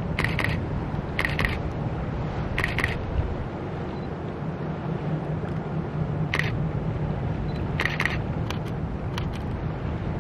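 Distant low rumble of a diesel work train led by a KLW SE15B locomotive crossing a stone arch bridge, with short sharp clicks coming unevenly, about every second or so.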